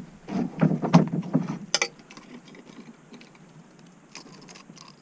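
A burst of knocks and thumps against a kayak's hull during the first second and a half, then a sharper rattle and a few light clicks and rattles, as a freshly landed pike is handled in the kayak.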